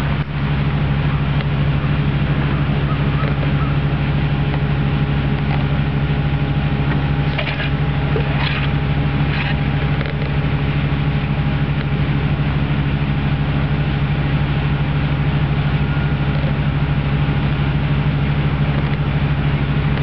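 A steady low motor hum, even and unbroken, with a few faint clicks a little before halfway.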